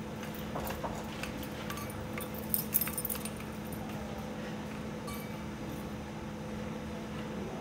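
Background noise of a large room: a steady low hum with scattered light clicks and a brief metallic jingling a little under three seconds in.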